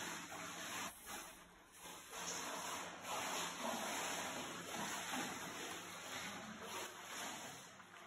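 Pool water splashing and lapping as a man swims, with a brief lull about one and a half seconds in.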